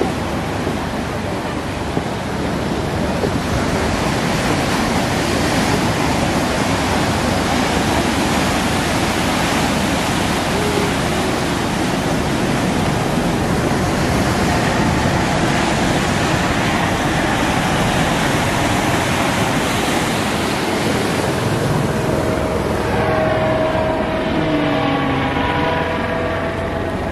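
Ocean surf breaking and washing in, with wind buffeting the microphone. In the last few seconds a helicopter passing overhead adds a pulsing, pitched drone.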